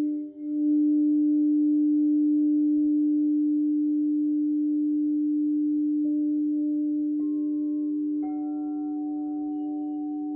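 Several crystal singing bowls ringing together in a long, steady hum, the lowest tone the loudest. Fresh bowl strikes add higher tones about 6, 7 and 8 seconds in.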